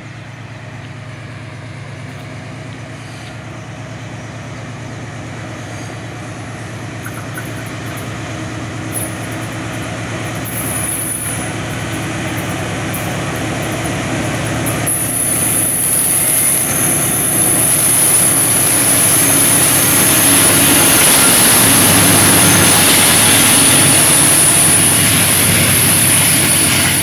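Freight train led by GE Dash-9 diesel-electric locomotives approaching and passing close by: a steady low engine rumble that grows steadily louder. A high wheel squeal joins about halfway, and near the end the loaded wagons roll past.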